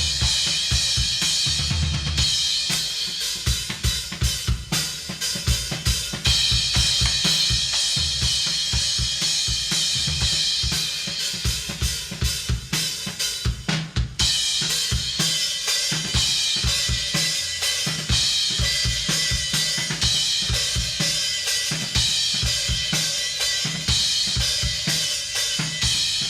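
Recorded metal drum kit playing back: rapid kick-drum strokes and snare hits under a steady wash of cymbals and hi-hat, with a brief break about halfway through.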